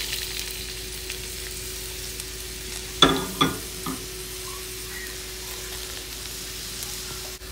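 Chopped red onions sizzling in hot oil in a stainless steel pot, just tipped in and worked with a spoon; the sizzle is strongest at the start. Two short knocks sound about three seconds in.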